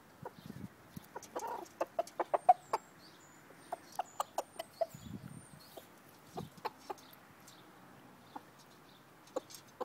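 Rooster pecking food off a metal garden table: an irregular run of sharp beak taps on the metal, thickest in the first few seconds and thinning out later, with a few soft clucks. Small birds chirp faintly in the background.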